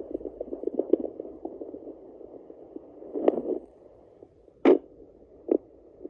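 A Sonoline B fetal Doppler's speaker plays a puppy's fetal heartbeat as a fast, even pulsing, with the display reading 180 beats a minute. The pulsing fades out about two seconds in. Three sharp knocks of handling noise follow, the second the loudest.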